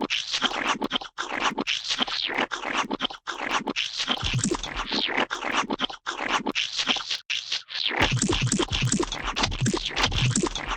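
Wet, gloppy paint splats and squelches, a dense run of short sticky hits with only brief gaps.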